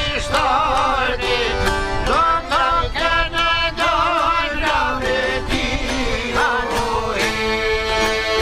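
Live Albanian folk music: plucked çifteli lutes and an accordion carry an ornamented, wavering melody over a steady frame-drum beat.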